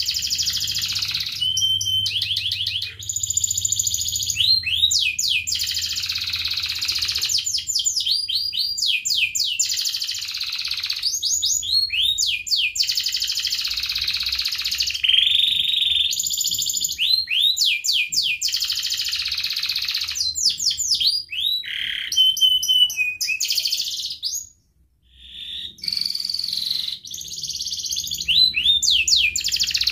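Domestic canary singing a long, near-continuous song of rapid trills and quick runs of down-slurred notes. It breaks off briefly about 25 seconds in, then carries on.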